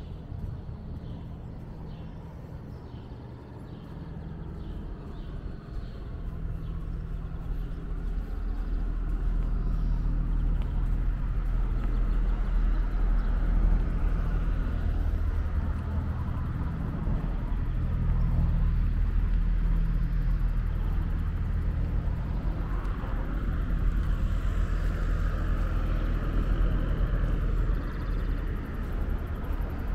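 Road traffic passing close by: a low engine rumble that grows louder after the first several seconds, with tyre noise swelling near the end. Faint, evenly spaced footsteps can be heard early on.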